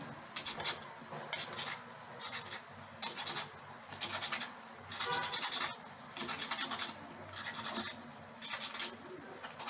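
Spatula scraping and stirring laccha semai strands as they deep-fry in oil in a black iron wok: short rasping strokes about once a second over the sizzle of the oil.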